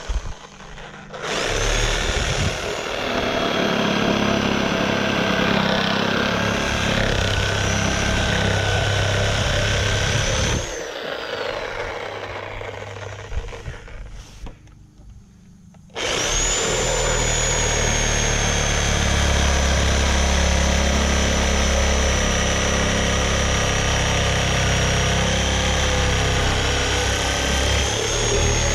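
Corded Chicago Electric reciprocating saw cutting through a wooden board: the motor starts about a second in and runs with a steady high whine over the rasp of the blade in the wood. About ten seconds in it winds down, and about five seconds later it starts again and cuts steadily to the end.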